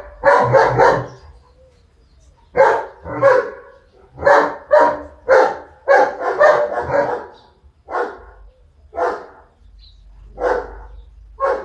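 A dog barking over and over: a quick run of three barks at the start, then single barks every half second to a second and a half.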